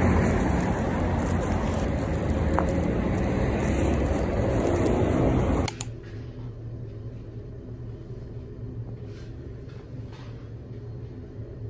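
Outdoor street noise, a loud steady rush, cuts off abruptly about six seconds in. It gives way to a quieter steady low hum inside an elevator car, with a few faint clicks.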